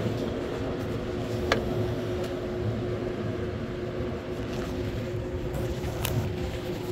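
Boat engine running steadily: a low rumble with a constant hum. Two sharp clicks, about one and a half seconds in and again near the end.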